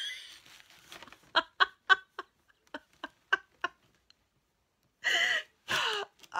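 A woman laughing: a quick run of short, evenly spaced "ha" bursts, then, after a pause, two longer breathy laughs near the end.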